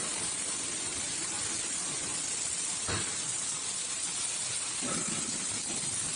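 Orbital tube welding machine at work, giving a steady hiss, with a faint knock about halfway through.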